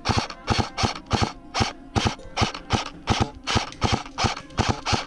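AK-pattern airsoft rifle firing single shots in quick succession: about fourteen sharp shots at a steady pace of nearly three a second.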